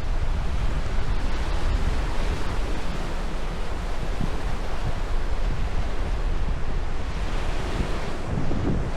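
Sea waves breaking and washing on a sandy beach, a steady surf, with wind buffeting the microphone in low rumbles.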